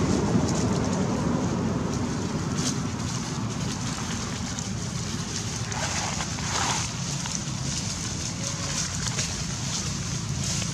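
Steady low outdoor rumble with a few faint short rustles.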